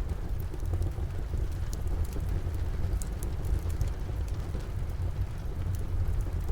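Steady rain with a strong low rumble under it, and a wood fire crackling in scattered sharp pops.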